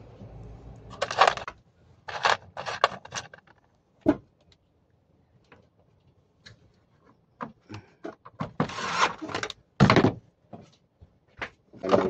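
Plastic parts of an air conditioner indoor unit being handled and fitted together: irregular rustles, clatters and clicks with short pauses between them, and a louder knock about ten seconds in.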